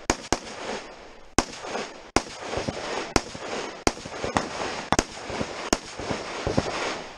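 Rifle shots fired in a quick, uneven string, about ten in the space of seven seconds, each followed by a rolling echo.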